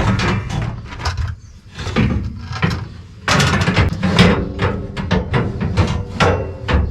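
Irregular metal clanks and knocks from hand work on combine parts, over a low steady hum.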